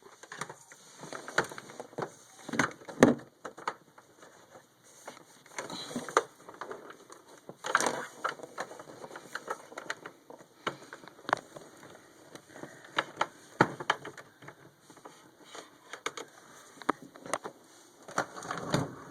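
Handling noise around the back of an all-in-one desktop computer and its cables: irregular clicks, knocks and rustles, with a louder knock about three seconds in.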